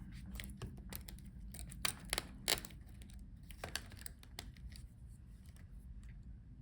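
Scattered light clicks and taps of small plastic laptop parts being handled as the speakers are taken out of the Dell Inspiron 16 7610's palmrest, loudest about two seconds in and thinning out later, over a faint steady low hum.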